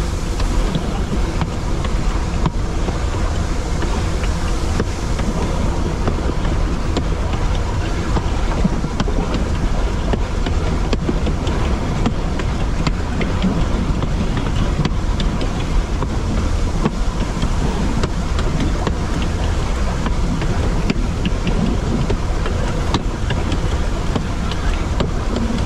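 Puffing Billy narrow-gauge train running along the line, heard from the front: a steady low rumble with wind noise and faint scattered clicks.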